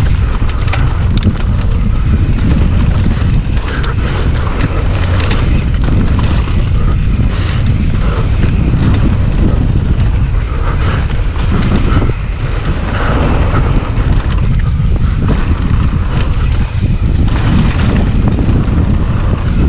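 Wind buffeting a GoPro action camera's microphone during a fast mountain bike run, with the bike's knocks and rattles over the rough dirt coming through it.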